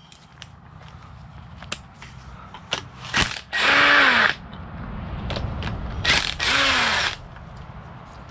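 Socket ratchet on a 10 mm socket and extender working bolts loose, with two longer runs of rapid ratcheting about a third of the way in and near the end, and scattered single clicks and taps of the tool on metal between them.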